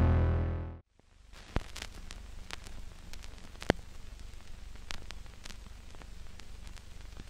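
Music fading out, then a steady low hiss with scattered crackles and pops, the two loudest about a second and a half in and near the middle.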